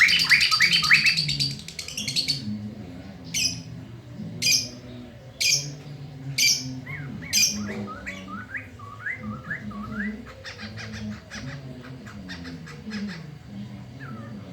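Poksay mantel, a laughingthrush, singing loudly: a fast run of repeated rising whistled notes, then sharp single calls about once a second, then short rising chirps and a quick series of clicking notes near the end.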